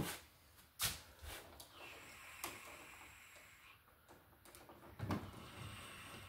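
Scattered light clicks and knocks, with some soft rustling, from a screwdriver and stiff electrical wires being handled at a wall switch box.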